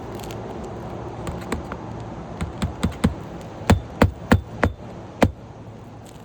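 Hammer driving a roofing nail into an asphalt shingle: a few light taps, then a run of harder strikes, the loudest five coming in the last two seconds or so.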